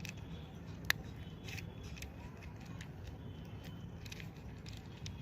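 Small 3×3 Rubik's cube being turned by hand: irregular plastic clicks and clacks of its layers, with one sharper click about a second in. The cube is stiff, not fully magnetic, and its layers turn tightly.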